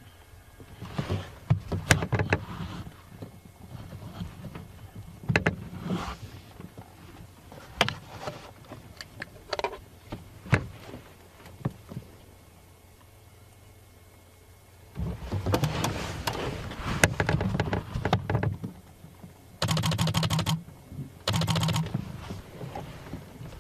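Irregular clicks and knocks, with a busier run of knocks past the middle. Two short buzzing bursts follow near the end.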